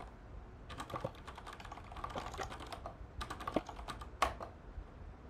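Typing on a computer keyboard: two runs of quick keystrokes with a short pause between them.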